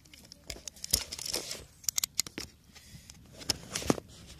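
Camera handling noise: irregular sharp clicks and knocks with rustling of cloth and plastic as the camera is moved about against clothing and a plastic bag, the loudest knock near the end.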